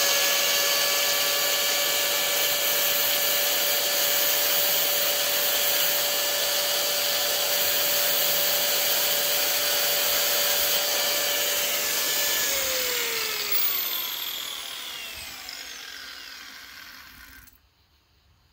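A high-speed power grinder running steadily with a high whine while grinding the groove in an arrow's screw-in field point. About twelve seconds in it is switched off, and its pitch falls as it spins down and fades away.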